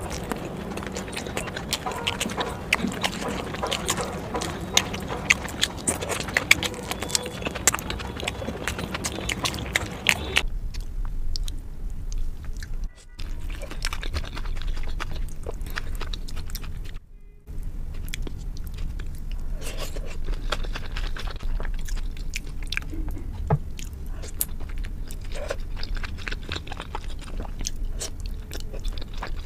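Close-miked eating sounds of momo dumplings being bitten and chewed, with many small wet clicks and smacks. The clicks are dense and loud for about the first ten seconds, then sparser and quieter, with two brief dropouts.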